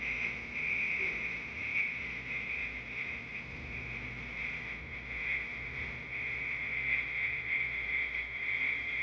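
A chorus of insects calling steadily in a high pitch, gently swelling and fading without a break.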